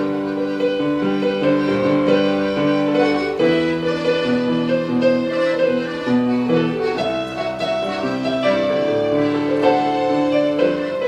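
Portable electronic keyboard played by hand: a melody over held chords, the notes sustained and changing every half second to a second.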